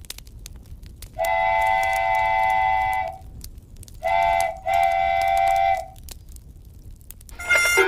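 A horn chord of several steady tones sounded three times: a long blast of nearly two seconds, a short one, then another long one.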